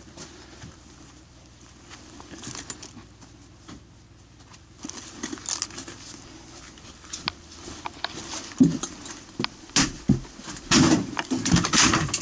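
Firefighter's metal gear clinking and rattling as he moves, with footsteps and scattered knocks. The knocks and clatters come thicker and louder in the second half, loudest near the end.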